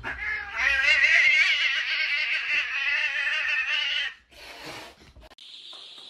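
A cat yowling in one long, wavering cry for about four seconds. A short noisy rustle follows, and near the end the steady high cheeping of many chicks begins.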